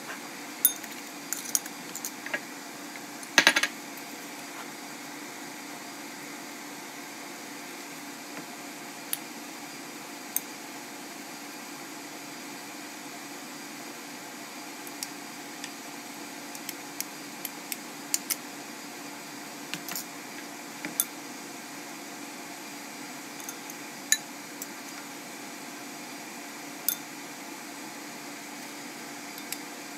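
Metal spoon and fork clinking and tapping against a ceramic bowl and a glass bowl while chicken tenderloins are breaded in flour and egg wash. The clicks are scattered, with a louder clatter about three and a half seconds in, over a steady low hum.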